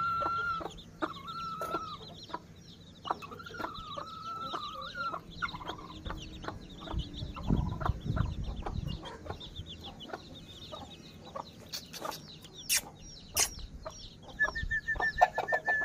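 Aseel hen and her chicks calling: the chicks peep constantly in short, high calls, with a few longer held calls near the start and near the end, over low clucking from the hen. A few sharp clicks come near the end.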